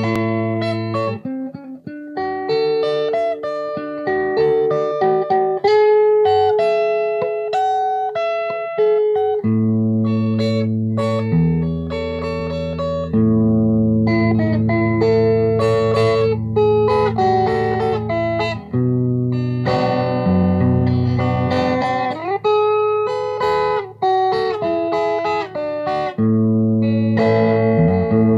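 Electric guitar played fingerstyle: a slow melody picked over held bass notes, with one note sliding up in pitch about three-quarters of the way through.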